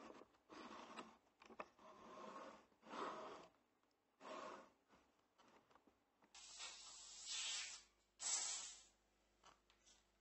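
Wooden stop block slid by hand along the fence of a drill press table: a series of short, soft scraping strokes, with two louder scrapes in the second half.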